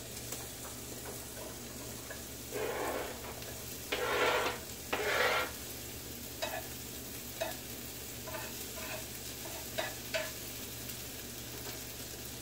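Chopped onions being scraped off a cutting board into a hot frying pan, sizzling steadily, with three louder surges of scraping and sizzle a few seconds in and a handful of light knocks of the board or spatula on the pan later.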